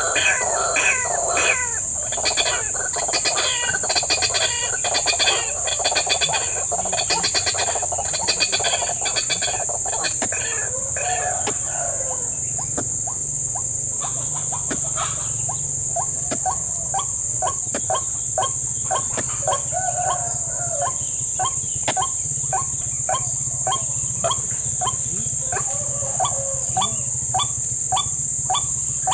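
White-breasted waterhens calling: a dense run of rapid repeated notes for about the first twelve seconds, then sparser strings of short notes. A steady high-pitched insect drone runs underneath.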